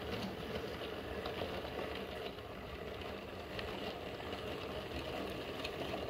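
Model railway train running along the layout's track: a steady rumble from the wheels and motor, with scattered faint clicks.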